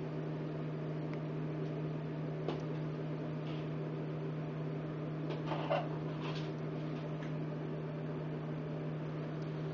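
Steady low electrical hum. A brief, faint pitched cry comes a little past halfway.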